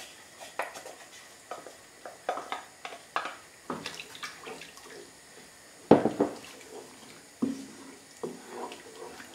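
Beef stock poured from a measuring jug into a pan of onions, then stirred in with a spatula: liquid sloshing and splashing, with scattered knocks and scrapes against the pan and one louder knock about six seconds in.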